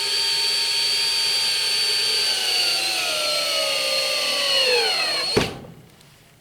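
Power drill running into wood, a steady whine that drops in pitch over its last couple of seconds as the load builds, then stops abruptly.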